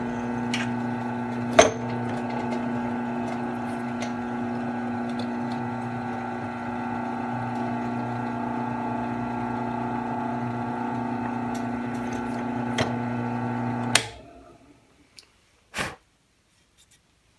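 WEN 2410T benchtop drill press motor running with a steady hum while the bit is fed into a wood block. A few light clicks come during the run. The motor is switched off about fourteen seconds in and runs down within a second, followed by one sharp knock.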